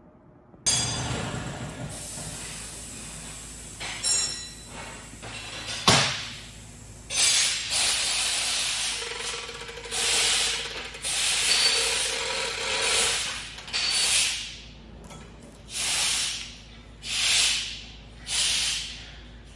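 Hand chain hoist on a steel gantry crane being pulled hand over hand to lift a heavy steel block, the chain rattling through the hoist in repeated surges about every second and a half. A single sharp clank comes about six seconds in.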